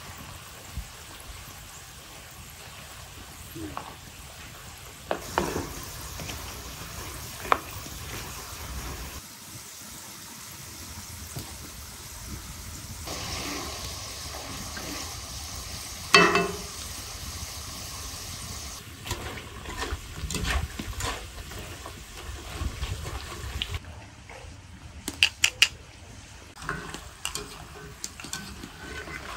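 Food sizzling as it fries in hot oil, a steady hiss broken now and then by sharp clinks and knocks of a utensil against the pan.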